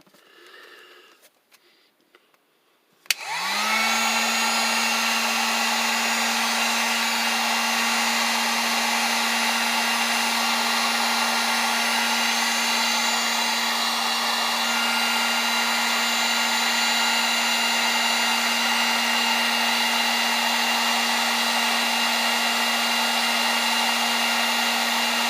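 Drill Master dual-temperature heat gun switched on with a click about three seconds in. Its fan spins up within a second to a steady, even hum that does not change.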